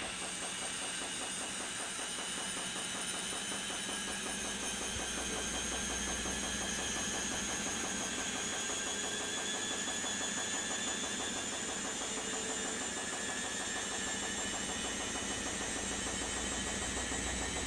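Candy Activa Smart washing machine running steadily, its motor giving a high whine over a low hum, with the pitch drifting slowly.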